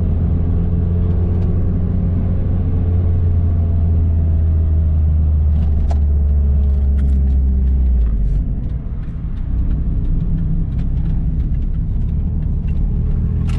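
Car engine and road noise heard from inside the cabin while driving, a steady deep drone under the engine note. About eight seconds in the deep drone drops away and the engine note eases as the car slows.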